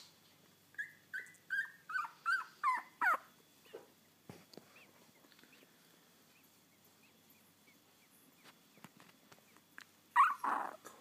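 10-day-old Labrador puppies whimpering and squealing. A quick run of about seven short, high cries, each falling in pitch, comes in the first few seconds, followed by faint little squeaks and one louder squeal near the end.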